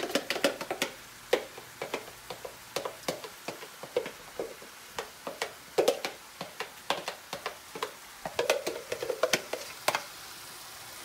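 A plastic tub of crushed tomatoes handled and tipped over a skillet: irregular clicks and taps several times a second as the thick sauce drops onto browned ground turkey, over a faint sizzle from the pan.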